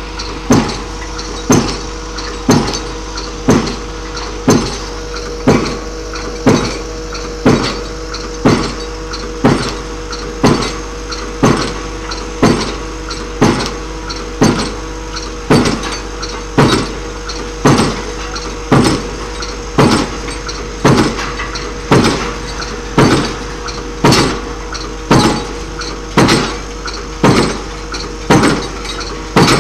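5-tonne HGS hydraulic impact pile hammer striking a 250 × 250 mm precast concrete pile, about one sharp blow a second with a short ring after each. Under the blows is the steady drone of the crawler rig's engine.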